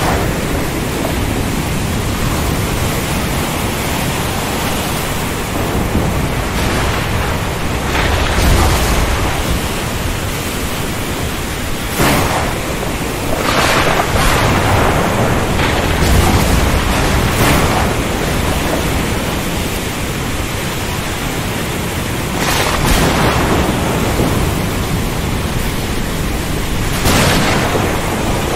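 Thunderstorm: a steady rush of heavy rain, with thunder cracking sharply about seven times, now and then rolling into a low rumble.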